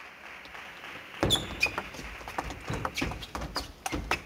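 Table tennis rally: the ball clicks sharply off bats and table in quick, uneven succession, starting about a second in, over a steady background hiss.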